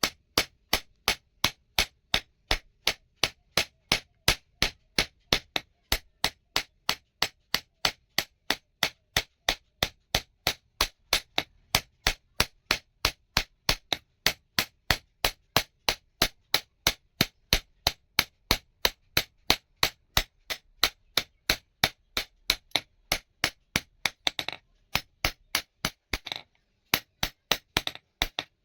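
Hammer forging a steel rod on an anvil: sharp blows in a fast, even rhythm of about three to four a second, with a few short breaks near the end.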